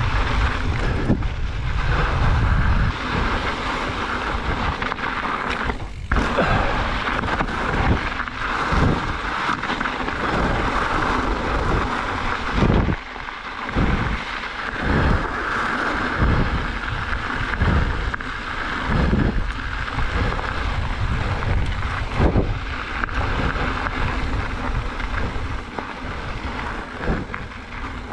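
Mountain bike riding fast down a dirt trail: steady wind noise on the microphone over the sound of tyres on dirt, with irregular low thumps as the bike goes over bumps.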